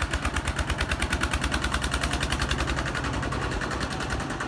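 Kubota RT-120 two-wheel tractor's single-cylinder diesel engine chugging with a rapid, even beat as it tows a loaded trailer.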